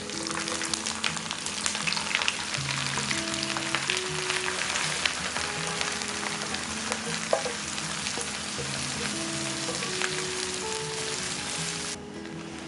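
Food sizzling and crackling in hot oil in a pan, with a steady dense hiss full of small pops that cuts off abruptly near the end. Background music plays underneath.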